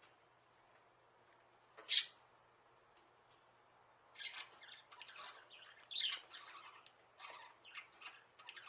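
Budgerigars chirping: one sharp, loud call about two seconds in, then a busy run of short chirps and warbles.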